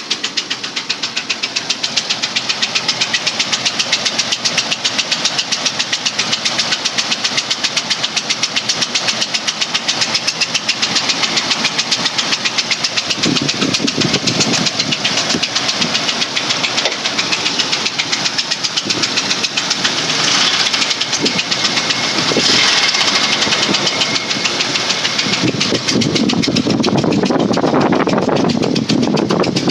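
The 4.0-litre V6 of a 2003 Ford Explorer running with a rapid, regular knock through the engine noise, which the owner calls engine knock. It gets somewhat louder about two-thirds of the way in.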